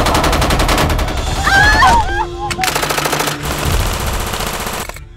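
Rapid automatic gunfire in two long bursts, broken briefly about two seconds in, then cutting off suddenly just before the end.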